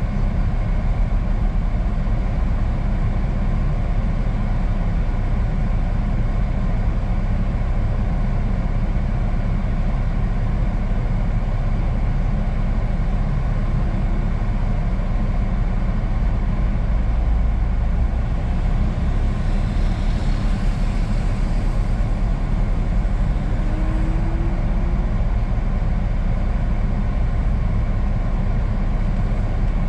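Truck's diesel engine idling steadily at a standstill, heard from inside the cab.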